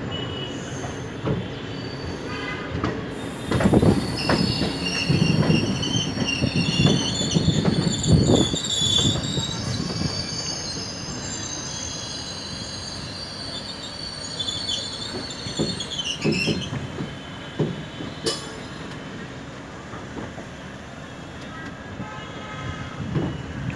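Coach wheels of a moving passenger train, heard from the coach door, squealing and clattering over rail joints and points as the train pulls out. A high wheel squeal sets in about three seconds in and dies away at about seventeen seconds, with scattered knocks from the wheels beneath it.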